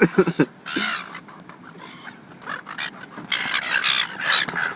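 Seagulls calling close by, with a few sharp knocks just at the start and a busier stretch of high, harsh calling near the end.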